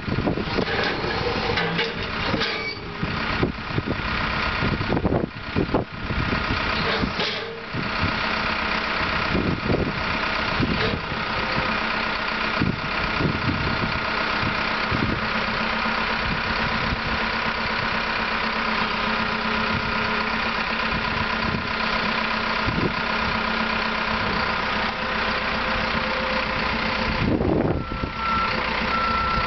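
Caterpillar 414E loader's diesel engine running steadily, with clunks and brief drops in level during the first several seconds. A reversing alarm starts beeping near the end.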